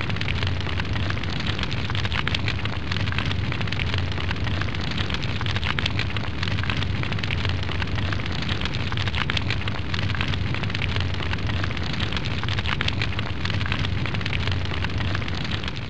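A steady, loud crackling rumble with a deep low hum underneath, a sound effect; it fades out at the very end.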